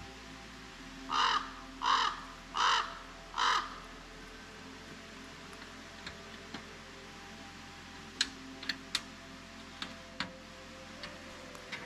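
A crow cawing four times in quick succession, followed by a few scattered faint clicks.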